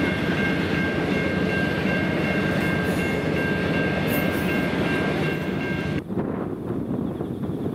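Passenger railway carriages rolling past on the rails, with a steady high-pitched ring over the rolling noise. About six seconds in it cuts suddenly to wind buffeting the microphone.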